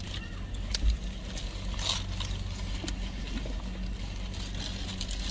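Steady low hum of a car idling, with the crinkle of a paper food wrapper and small eating noises and clicks now and then.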